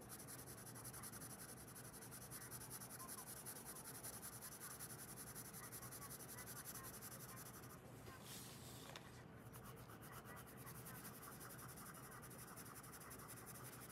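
Coloured pencil shading on paper: faint, quick back-and-forth scratching strokes, with a short rustle about eight seconds in as the sheet is turned.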